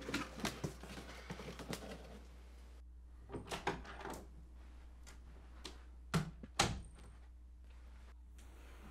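Cardboard box flaps being handled, with scattered rustles, clicks and taps, then a few thuds and two sharp knocks about half a second apart, a little after six seconds in.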